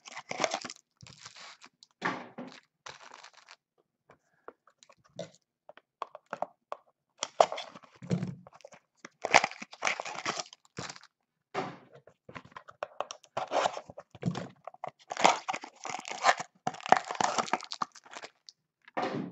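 Foil trading-card pack wrappers being torn open and crinkled by hand, in irregular bursts of tearing and crackling with short pauses between.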